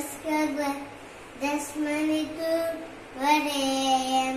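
A young child singing a Hindu prayer chant, three phrases of long, held notes.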